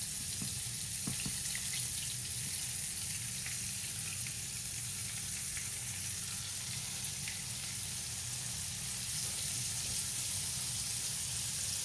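Flour-dredged turkey cutlets frying in hot oil in a skillet: a steady sizzle with scattered small crackles, over a steady low hum.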